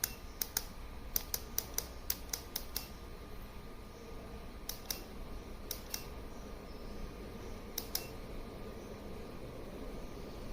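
A series of sharp clicks, many in quick pairs, bunched in the first few seconds and then coming every second or two, over a steady low hum.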